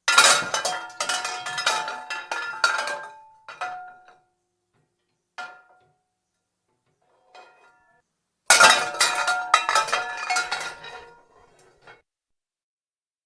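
Metal pots and pans clattering and crashing together, with a ringing clang after the hits. There are two bouts of rapid clattering, one at the start and one about eight seconds later, with a few single clinks between them.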